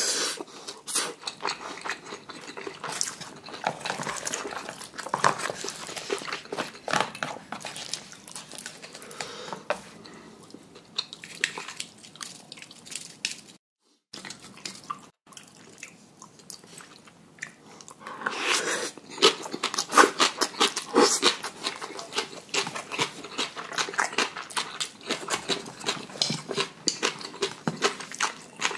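A person eating spicy noodles and rice close to the microphone: irregular chewing, lip-smacking and slurping. Two short silent gaps come near the middle.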